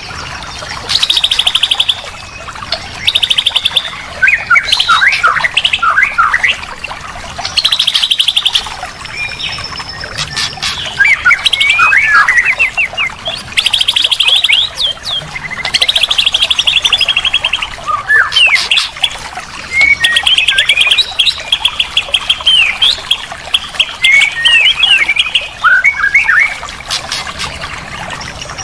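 White-rumped shama (murai batu) song played as a masteran training track: loud, rapid trills alternating with varied whistled phrases and chips, in bursts a second or two apart.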